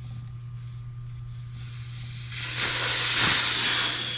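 Air hissing out of a Onewheel+ XR tire through its open valve stem, the valve core removed, as the tire deflates. The hiss starts about two seconds in, swells and fades away by the end.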